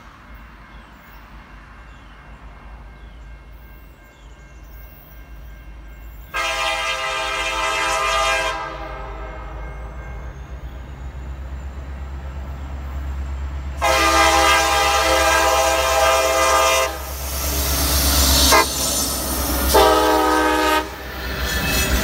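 Norfolk Southern diesel freight locomotive sounding its air horn for a grade crossing: two long blasts, a brief toot, then a final blast. Under the horn the diesel's rumble grows steadily louder as the train draws near and passes.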